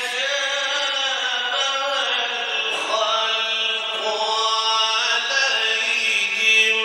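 A man reciting the Quran in the melodic, drawn-out mujawwad style, singing one long ornamented phrase with held notes. The pitch climbs about halfway through and settles on a long held note near the end.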